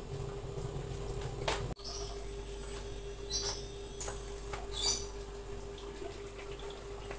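Squid in tomato gravy simmering in a wok under a glass lid: soft bubbling with scattered pops and crackles over a steady hum.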